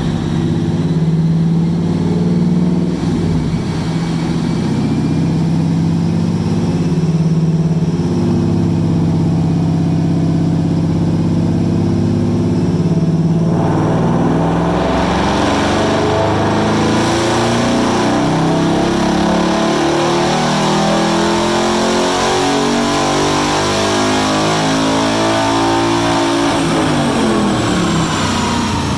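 Ford Mustang's 5.0 Coyote V8 running steadily in gear on a chassis dyno, then about 13 seconds in going to full throttle and climbing through the revs in one long pull. The engine lets off and the revs fall near the end.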